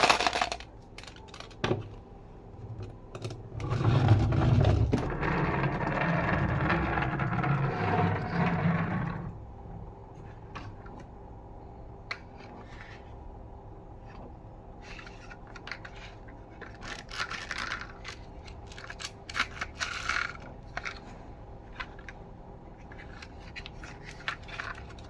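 Marbles rolling and clattering through a marble run: a steady rolling rumble from about four to nine seconds in, then lighter scattered clicks and taps as marbles knock against the track pieces.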